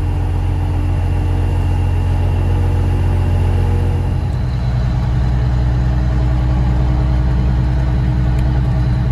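Grain truck's engine running steadily, heard from inside the cab; its note changes about four seconds in.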